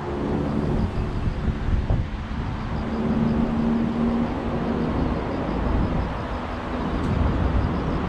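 Wind buffeting the camera microphone: a steady, gusty low rumble. A faint motor-like hum sits underneath, clearest a little after the middle.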